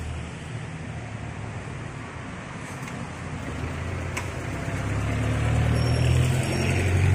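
A motor vehicle's engine rumbling on the road, growing louder over the last few seconds as it comes closer, with one short click midway.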